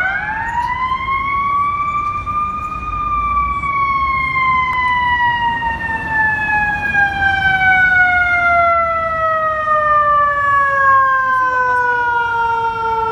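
Fire engine's mechanical siren winding up to a high pitch over about three seconds, then slowly winding down for the rest of the time without stopping. A low rumble of traffic runs beneath it.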